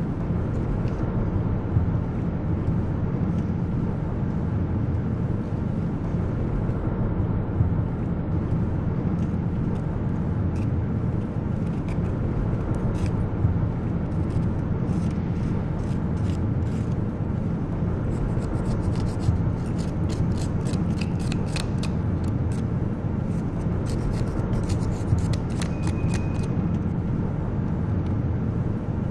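Plastic pry tool scraping and picking packed dirt and grit out of a car's windshield cowl channel: a run of small scratchy clicks that starts about a third of the way in, grows busier in the second half and stops just before the end. A steady low hum runs underneath throughout.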